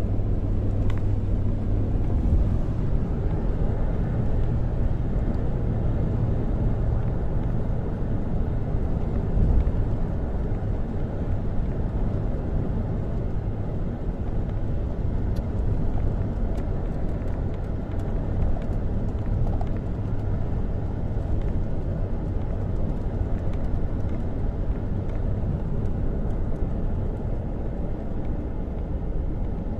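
A vehicle on the move: steady low engine and road rumble with a constant low hum.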